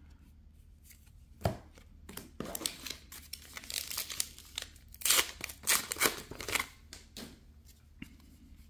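A trading-card booster pack's wrapper crinkling and tearing as it is pulled open by hand. A sharp crackle comes first, and the loudest rips fall a little past the middle.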